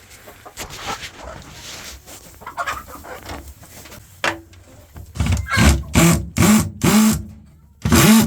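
Chicken calling loudly in the coop: a quick run of about five short, pitched calls starting about five seconds in, then two more near the end, over faint rustling.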